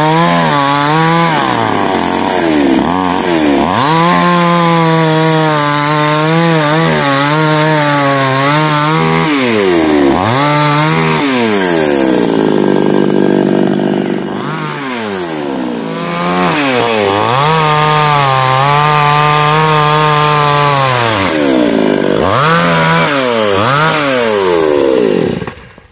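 Gasoline chainsaw cutting through a coconut palm trunk. The engine pitch rises and falls again and again as the throttle is opened and eased. It drops to a lower, quieter run for a couple of seconds partway through and cuts off just at the end.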